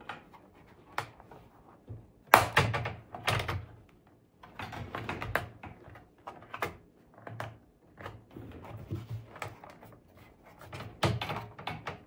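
Plastic snap clips of an HP 17 laptop's bottom cover clicking and popping loose as the cover is pried up by hand, with scattered plastic knocks and clunks; the loudest about two seconds in, and several more near the end.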